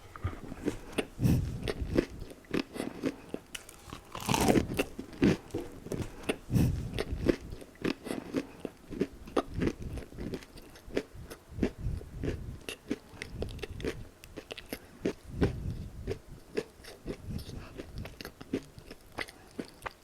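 Close-miked eating of crispy Popeyes fried chicken: crunching bites and chewing, with a steady run of sharp mouth clicks and one especially loud crunch about four seconds in.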